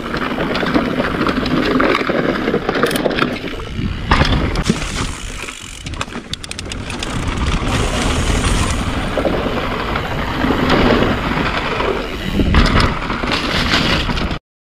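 Mountain bike ridden fast over a wooden boardwalk and onto dirt trail: steady tyre rumble with the bike rattling and knocking over the boards. Cuts off suddenly near the end.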